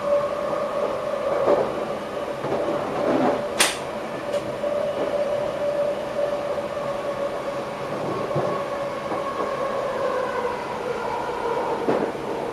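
Electric passenger train running, heard from inside the driver's cab: a steady whine from the drive, whose pitch sags slightly toward the end, over rolling noise with a few knocks and one sharp click a little over three seconds in.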